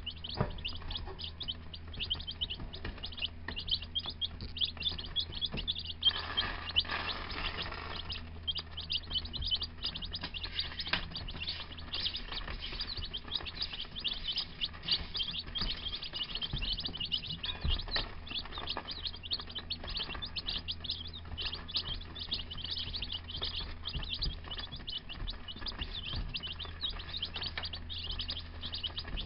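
A brood of baby chicks (Gold Star, Rhode Island Red and Buff Orpington) peeping nonstop, many rapid high-pitched peeps overlapping, with a steady low hum underneath.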